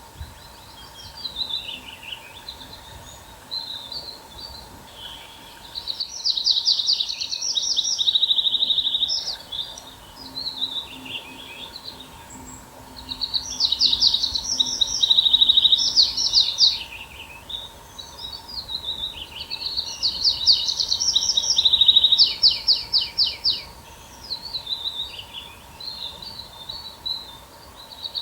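A songbird singing loud phrases of quick repeated notes and trills about every seven seconds, with softer twittering in between. A faint steady hum sits under it.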